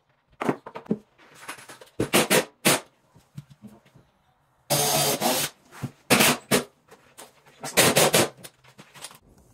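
Irregular knocks and short bursts of tool and handling noise from fitting a wooden filler strip to a wardrobe cabinet, the longest burst lasting under a second about halfway through.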